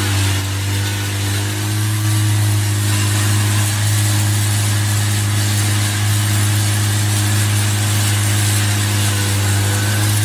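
Engine of a heavy machine running steadily at a constant speed, a deep even hum with a hiss over it.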